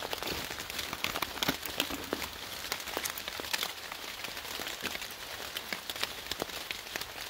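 Rain falling on forest foliage: a steady patter of many scattered drops.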